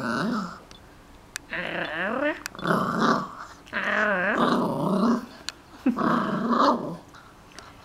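Yorkshire terrier growling in about five bouts, some sliding up and down in pitch into a whiny growl.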